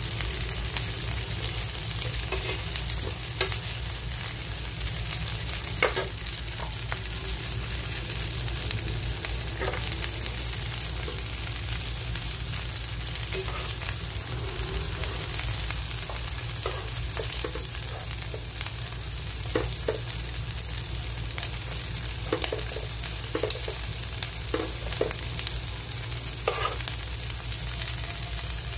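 Whole shrimp and sliced onion sizzling in a frying pan as they sauté, a steady hiss, with a utensil clicking against the pan about ten times as they are stirred. A low steady hum sits underneath.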